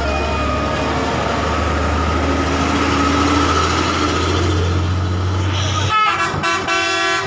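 A bus passing with a low, steady engine drone and road noise. About six seconds in, its horn blares in a run of short blasts.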